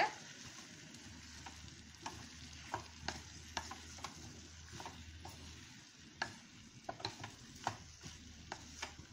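Diced raw mango pieces sizzling in a steel kadai while a spatula stirs them, with irregular clicks and scrapes of the spatula against the pan over a steady frying hiss.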